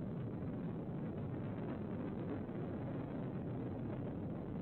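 Freight train rolling past, a steady rumble of wheels on the rails.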